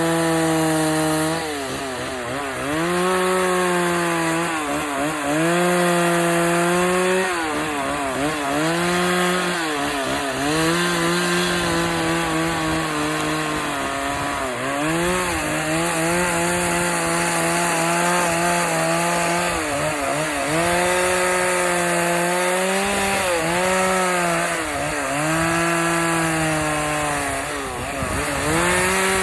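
Gas chainsaw running at high revs and cutting wood, its pitch dipping briefly each time it bogs into the cut and then climbing back, every two to four seconds.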